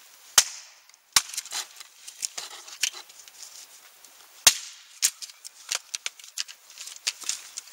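Hatchet chopping and splitting a stick of dry wood: three sharp, loud strikes (about half a second in, just after a second, and about four and a half seconds in), with many lighter taps and cracks of wood between them.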